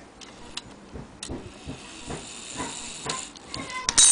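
Antique clock movement giving a string of sharp mechanical clicks about twice a second as it is handled, with a faint hiss in the middle and a loud handling knock just before the end.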